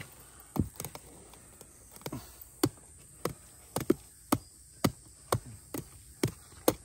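Tool chopping into a bamboo root clump: a few scattered knocks, then from about two and a half seconds in a steady run of sharp strikes, about two a second.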